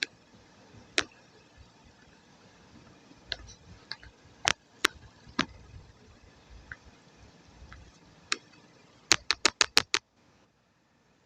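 Sharp, isolated clicks and taps from handling the clay paste and its utensils, a few seconds apart, then a quick run of about six near the end before the sound cuts out.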